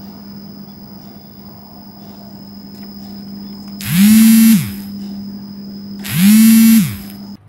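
A motor revved up twice, each burst under a second: its pitch rises quickly, holds, then falls away. A steady low hum runs underneath.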